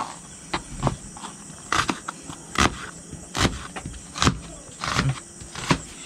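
Kitchen knife slicing a red onion on a plastic cutting board: sharp knocks of the blade striking the board, about eight, spaced unevenly half a second to a second apart.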